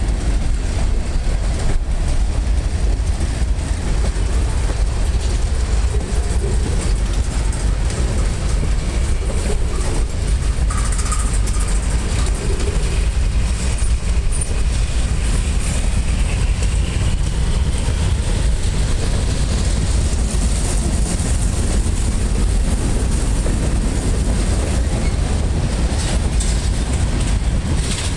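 Freight train cars rolling past at close range: a steady rumble of steel wheels on rail, with scattered clicks from the wheels.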